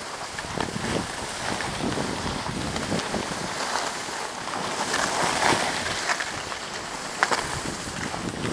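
Wind rushing over the microphone while moving downhill, with the hiss and scrape of skis and a snowboard sliding on packed snow. The noise swells about five seconds in.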